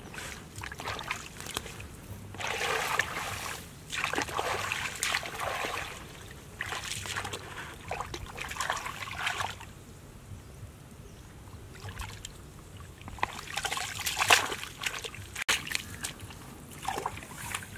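Hands scooping and sloshing through shallow muddy water, in irregular bursts of splashing a second or more long with quieter gaps between.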